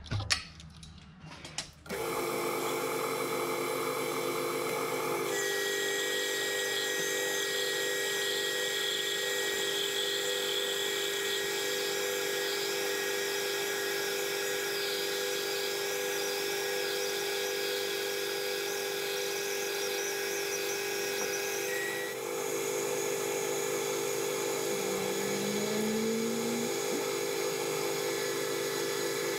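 Metal lathe starting up about two seconds in and running steadily while turning down a round metal bar for a bush. A steady whine runs through it, with a higher tone through the middle that drops out about two-thirds of the way through.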